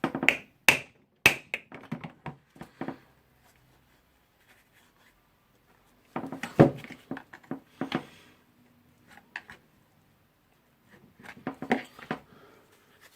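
Hand tools and small metal parts clinking, tapping and scraping while a rotary hammer drill is prised apart with a screwdriver, in three bursts of sharp clicks and knocks with quiet gaps between.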